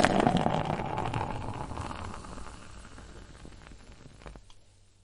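Beer being poured into a glass, the pouring noise tapering off into the fizz of the head, which fades away gradually; a small click about four seconds in.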